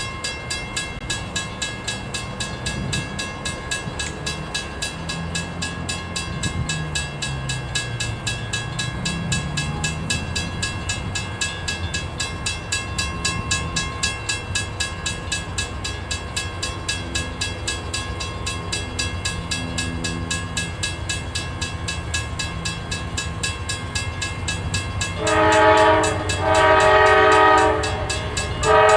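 Grade-crossing bell dinging rapidly and steadily, with the low sound of an approaching freight train's diesel engines underneath. About 25 seconds in, the lead CSX GE AC44CW locomotive sounds its horn: two blasts of about a second each, then a third starting near the end.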